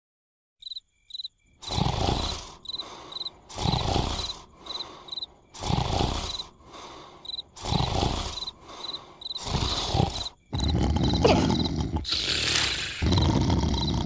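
Exaggerated cartoon snoring from a sleeping caterpillar: a loud snore about every two seconds, with quieter breaths between, turning into a louder continuous rasp from about ten seconds in. Cricket chirps repeat steadily throughout.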